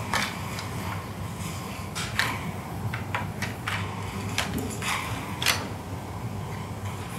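Scattered sharp clicks and clinks of surgical instruments being handled on an instrument table, about eight in all, over a steady low hum.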